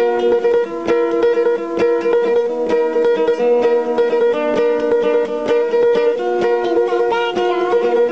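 Background music: a ukulele picked and strummed in a steady, even rhythm.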